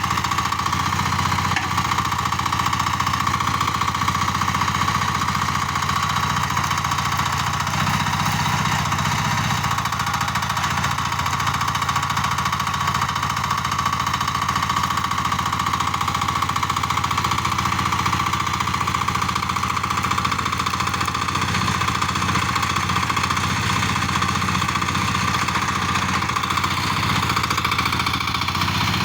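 Komatsu PC08 mini excavator's diesel engine running steadily while the machine works, with a steady high whine over the engine note. The engine note shifts slightly a few times as the load changes.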